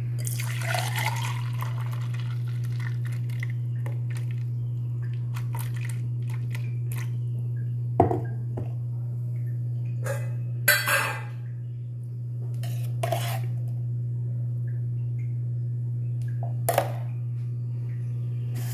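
Thick blended lassi poured from a steel vessel into a glass for about the first two seconds, then scattered clinks and knocks of the steel vessel and glass on the counter. A steady low hum runs underneath.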